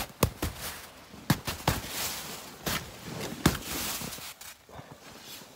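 A hand pushing and tapping at the snow-loaded wall of an MSR Hubba Hubba NX2 tent from inside: several dull knocks on the nylon fabric, with a rustling slide of snow and fabric in the middle.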